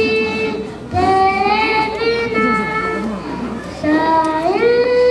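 A young boy singing long held notes into a microphone, in phrases that break briefly about a second in and again near the end, accompanied by an acoustic guitar.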